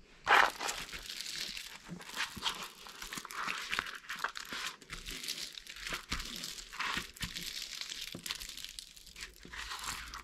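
Clear plastic protective film on a diamond painting canvas crinkling as hands press and smooth it flat. It is a continuous run of crackles, with a louder burst just after the start.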